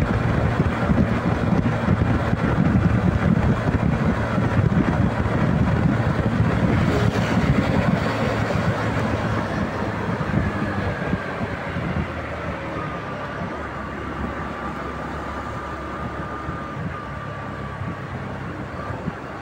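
Bajaj Platino 110 single-cylinder motorcycle engine running on the move, with wind buffeting the microphone; it eases off and gets quieter about ten seconds in.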